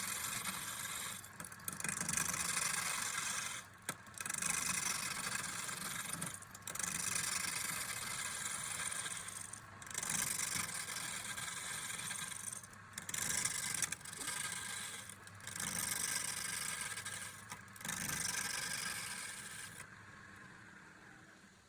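A tool working wood in repeated passes: stretches of hissing, scraping noise, each one to three seconds long, broken by short pauses, dying away about twenty seconds in.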